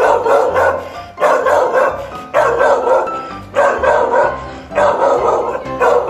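Background music with a phrase and bass line repeating a little more than once a second, mixed with a dog barking.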